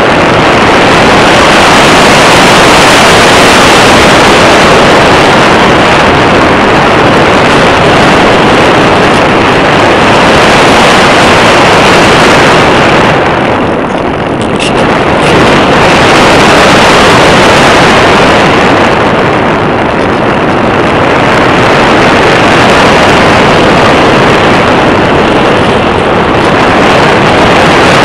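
Loud wind rushing over an RC glider's onboard camera microphone in flight, a steady noise that eases briefly twice, about halfway through and again a few seconds later.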